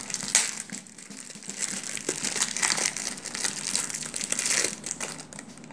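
Thin plastic wrapper crinkling as a small toy is unwrapped by hand, in irregular bursts with one sharp crackle about a third of a second in, quieter near the end.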